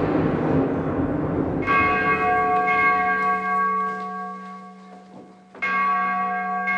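A noisy wash dies away, then a bell is struck twice, about four seconds apart, each stroke ringing on and slowly fading.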